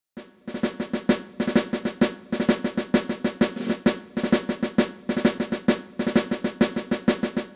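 Percussion intro music: a quick, repeating drum pattern of rolls and sharp hits, dying away near the end.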